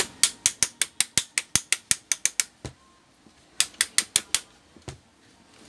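Ratcheting screwdriver clicking as it is turned back and forth on a screw of a stand fan's motor: a quick run of about a dozen clicks at some five a second, a pause, then about five more.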